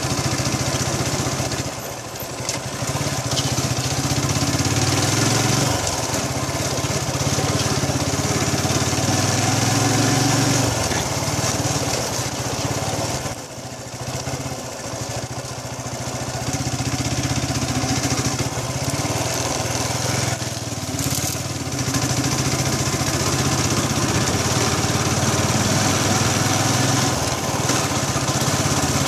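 Small motorcycle engine running steadily under load on a rough dirt road, under a steady hiss. The engine eases off briefly three times: about two seconds in, about halfway through, and about two-thirds of the way through.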